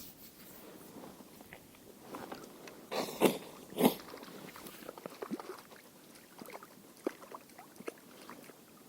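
Close handling noises: small scattered clicks and rustles, with two louder knocks a little over three seconds in, about half a second apart.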